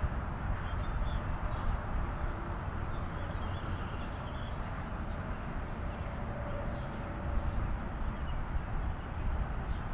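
Outdoor ambience: wind buffeting the microphone as a steady low rumble, with faint bird chirps now and then.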